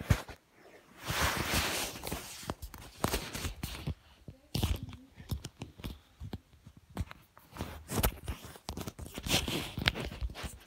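Handling noise of a phone being moved about and fumbled: irregular knocks and clicks, with rubbing and rustling on the microphone, loudest at about a second in and again near the end.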